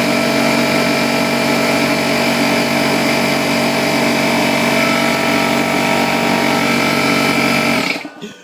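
Porter Cable air compressor running loudly and steadily, then cutting off abruptly near the end as the tank reaches its shut-off pressure of about 150 psi.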